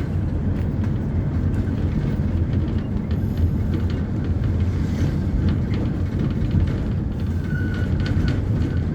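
Diesel engine of a 2014 Neobus Thunder midibus on an Agrale MA 10.0 chassis running steadily with a low rumble. A faint high whine comes in briefly near the end.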